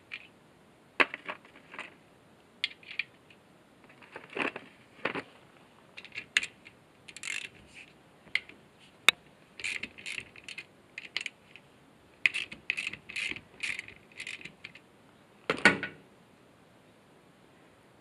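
Hand socket ratchet clicking in short bursts of quick clicks as bolts are undone on the side of an electric winch, with scattered metal clinks of sockets and tools. A louder metal clunk comes about 15 s in.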